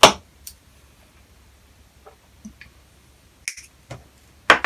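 A few separate sharp clicks and clacks from small hand tools and a through-hole electrolytic capacitor being handled on a workbench while the capacitor's legs are cut and shaped. The loudest click comes right at the start and another near the end.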